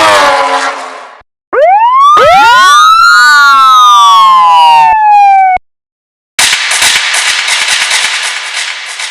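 A run of synthesized production sound effects. First a pitched tone fades out. Then several electronic tones glide up, meet, and slide down together like a siren sweep, cutting off suddenly. Last comes a burst of noise that fades away.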